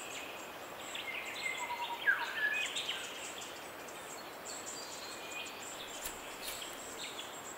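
Natural bush ambience with birds calling: a run of short chirps between one and four seconds in, including a falling whistle about two seconds in, and a few faint chirps later. Under them are a faint steady hiss and a thin, high, insect-like buzz.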